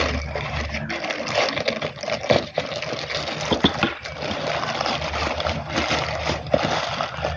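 Mini washing machine running with water sloshing. Its motor hum stops about a second in and starts again around four and a half seconds, with a few knocks in between.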